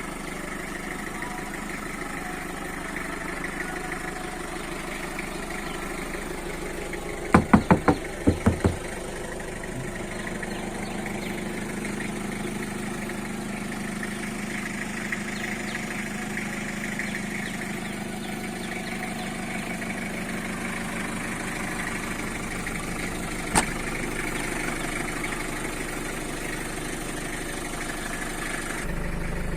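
Mitsubishi L300 minibus engine idling steadily. About seven seconds in, a quick run of about six sharp knocks, and a single click later on.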